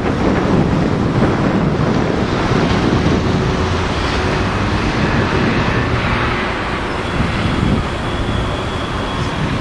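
Wind buffeting the camera microphone, a steady loud rush, over the rumble of street traffic.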